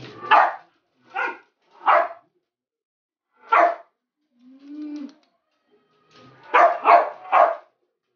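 A small dog barking in play: seven short, sharp barks, four spaced out over the first four seconds and a quick run of three near the end. A quieter, lower drawn-out sound comes in between.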